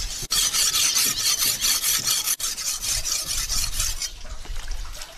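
A steel cleaver being sharpened on a wet stone, its blade stroked quickly back and forth in a run of rasping strokes that fade near the end.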